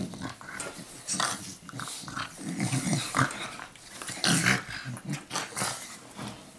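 Two blue Staffordshire bull terriers play-fighting, growling in irregular bursts, with the rustle of the bedding under them.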